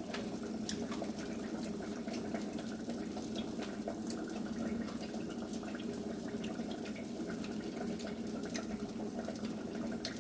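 Food frying in hot grease: a steady sizzle with many small scattered pops and crackles.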